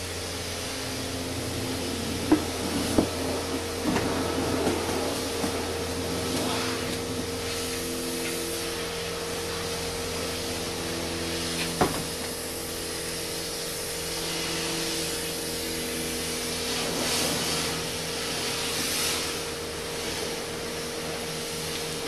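A steady mechanical hum with several held tones runs throughout, from an unseen machine running in the workshop. Over it come a few sharp metallic clicks and knocks, about two, three, four and twelve seconds in, as the oil drain plug is handled under a 2009 VW Golf while its engine oil drains into a pan.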